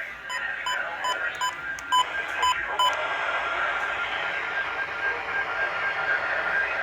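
A weather radio receiver beeps sharply about eight times in quick succession over the first three seconds, as its keys are pressed while it is being tuned. After that comes a steady radio hiss with a faint steady tone.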